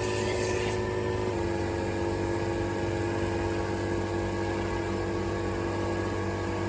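A motor-driven machine running steadily with a hum of several tones. A hiss over it stops just under a second in, and the motor's pitch drops slightly about a second and a half in.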